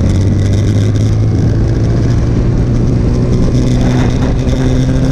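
Motorcycle engine running steadily at road speed over a constant rush of wind noise; the engine note rises slightly about three and a half seconds in.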